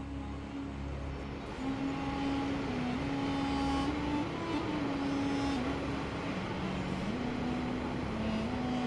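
Steady rush of water and wind along the hull of a moving river cruise ship. A slow melody of long held notes, like a bowed string instrument, plays softly over it.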